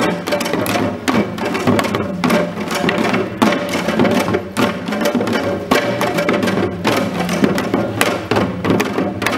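Korean janggo hourglass drums struck together in a fast, dense rhythm of sharp stick strokes and deeper hand beats.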